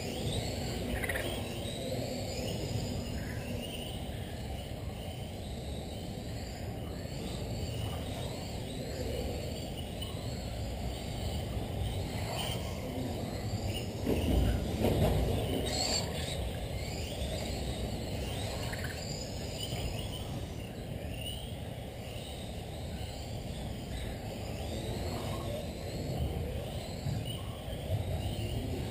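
Electric radio-controlled cars racing round a track, their motors whining in short glides that rise and fall in pitch as they speed up and slow down, with a louder pass about halfway through.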